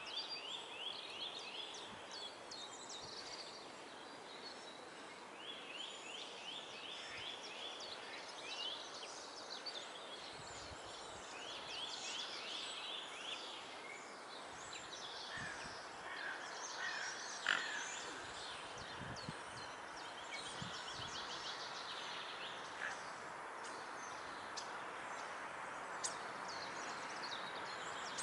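Small songbirds singing: a rapid trill that comes back about every five to six seconds, over many scattered high chirps and a steady background hiss.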